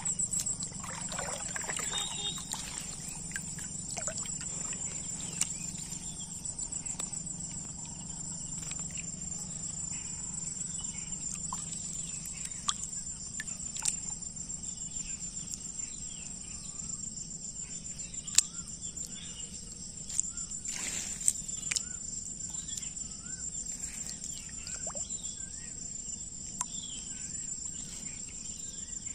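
Insects chirring steadily at a high pitch, with a few short sharp clicks scattered through.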